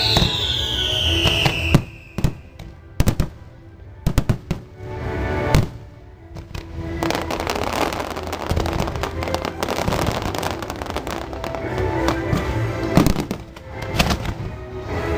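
Fireworks going off over loud show music: a whistle falls away in the first second or so, several sharp bangs follow, and from about halfway a dense crackling barrage of bursts runs on.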